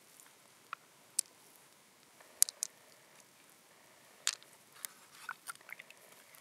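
Small blue pearls clicking against one another as they are picked out of an opened freshwater mussel and dropped into a palm holding more pearls: sharp separate clicks, a few in quick succession, then a run of fainter clicks near the end.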